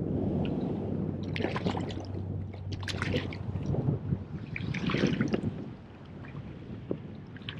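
Water sloshing and splashing against the side of a kayak, in three or four short bursts, as a hooked bonito thrashes at the surface beside the hull.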